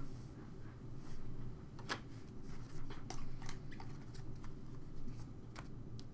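Faint scattered clicks and rustles of trading cards and a clear plastic sleeve being handled, with the sharpest tick about two seconds in.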